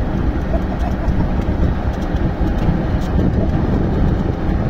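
Diesel railway crane's engine running steadily as the crane lifts a heavy railway wheelset.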